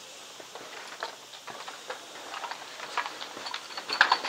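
Scattered light clicks and taps of a player's gear and movement, growing busier, then a rapid run of sharp clicks near the end, typical of an airsoft electric gun firing.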